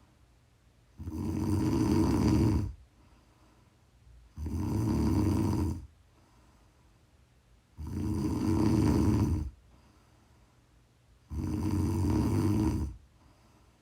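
A person snoring: four snores, each lasting under two seconds, coming about every three and a half seconds with quiet breathing gaps between them.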